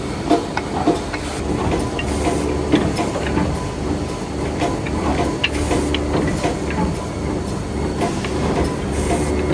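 Woodmaster chalk-mark defect cutting saw running: a steady machine hum with irregular sharp clacks and knocks.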